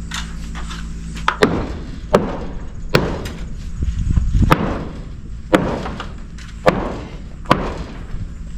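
A hammer driving nails into timber: about eight sharp strikes, roughly one a second, with a steady low hum underneath.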